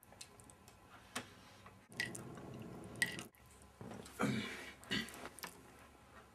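A fork clinking and scraping on a dinner plate, a handful of sharp clinks with a short ring, amid eating and chewing noises.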